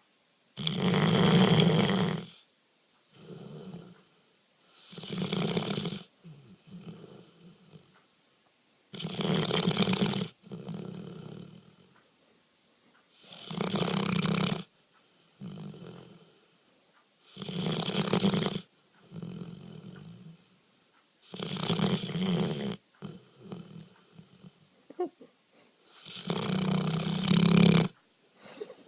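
Sleeping Labrador retriever snoring loudly: a loud, rasping snore about every four seconds, seven in all, each followed by a softer breath.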